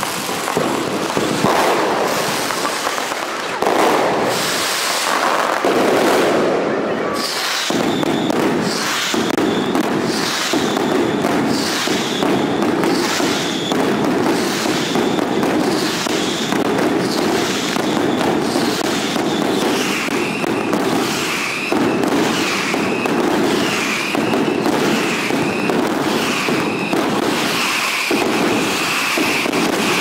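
Mascletà firecrackers going off in a dense, continuous barrage. From about eight seconds in, a repeating run of short whistles comes about once a second and drops in pitch around twenty seconds in.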